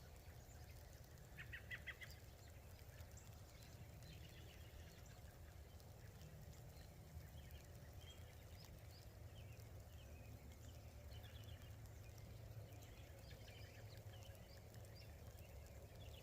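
Faint, scattered bird chirps over a low, steady rumble; a short cluster of chirps comes about two seconds in and more follow through the rest.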